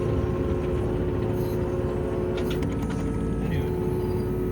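Kubota U27-4 mini excavator's engine running steadily: a low rumble with a steady hum above it.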